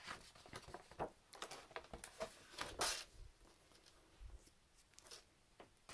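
Sketchbook page being turned and handled: faint paper rustles and crinkles, with a louder rustle nearly three seconds in.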